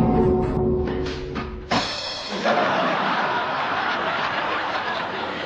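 Comic sound-effect stings on drums and percussion: a struck, ringing musical hit fades out, then about two seconds in a loud crashing, hissing wash like a cymbal starts and holds for several seconds.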